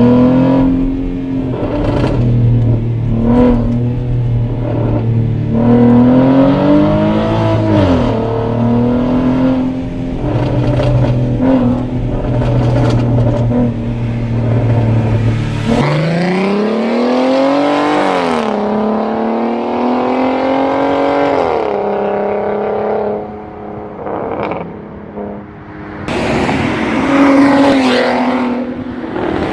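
Porsche Cayenne 3.6-litre naturally aspirated V6 with a stage 1 tune and an upgraded exhaust, idling and revved several times. The longest climb comes about halfway through. Sharp pops and crackles sound from the exhaust as the revs drop.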